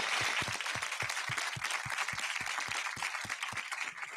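Audience applauding, a dense patter of many hands clapping that slowly thins out toward the end.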